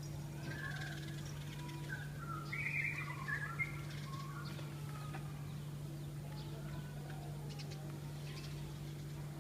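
Birds chirping and calling, loudest around three seconds in, over a steady low hum.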